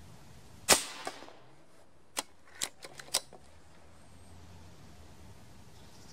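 A Reximex Throne PCP air rifle, firing a 6.35 mm pellet, fires one sharp shot, followed by a fainter knock about a third of a second later. About a second and a half after the shot comes a quick run of five or six sharp mechanical clicks as the rifle's action is cycled for the next pellet.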